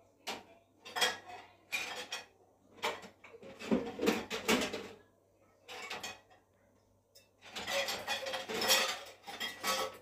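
Dishes and cutlery clattering and clinking in short bursts, with a quieter gap around the middle.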